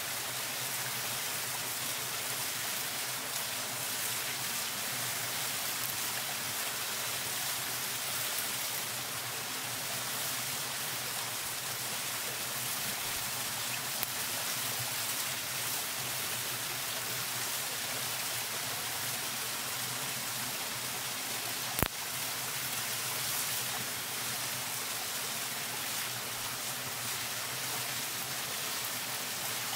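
Steady rushing of a small nearby waterfall, mixed with the fine crackling of a small fire of dry twigs and needles, and one sharp snap about three-quarters of the way through.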